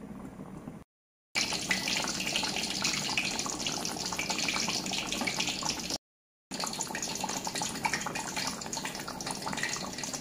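Thick fish curry bubbling hard in an open clay pot, a dense bubbling and popping, cooked down and ready to come off the heat. The sound cuts out briefly about a second in and again about six seconds in.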